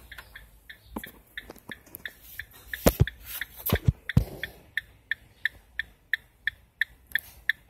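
A 2017 ProMaster van's hazard warning flasher ticking steadily, about three clicks a second, once the hazard button is pressed. A few louder thumps come around the middle.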